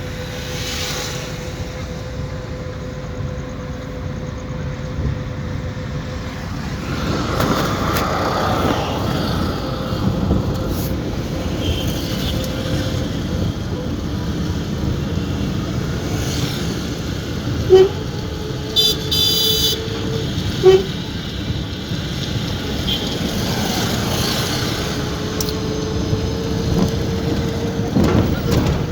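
Car driving through town traffic: steady engine and road noise, with other vehicles' horns honking, two short loud honks about three seconds apart near the middle.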